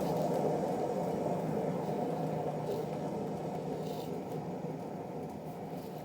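Hotpoint-Ariston washing machine in its spin cycle: a steady motor-and-drum hum and rumble that gradually gets quieter.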